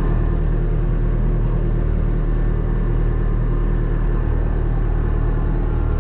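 Tractor engine running at a steady speed, heard from inside the cab, with a low, even drone.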